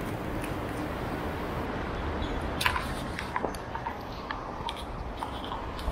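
Steady background noise, then from about two and a half seconds in a run of small sharp clicks and taps from hands handling a 35mm film SLR camera.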